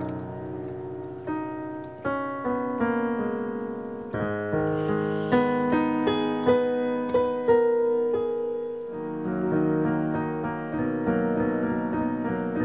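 Piano improvisation: chords in the lower register under a wandering melody, with a run of separately struck, accented notes about halfway through.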